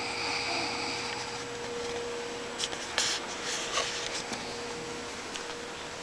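A sleeping woman's breathy snore lasting about a second and a half. A few light clicks and rustles follow around the middle, over a faint steady hum.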